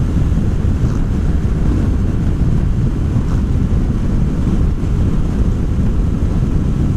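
Steady wind rush over the rider's microphone, mixed with the running engine and road noise of a liquid-cooled BMW R1200GS motorcycle under way.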